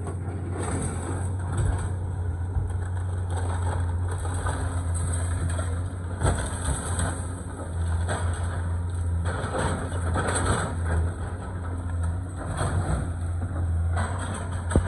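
Caterpillar tracked excavator's diesel engine running steadily while its bucket tears into a house's wall, with irregular cracking and crunching of breaking wood and falling debris, and a sharp crack near the end.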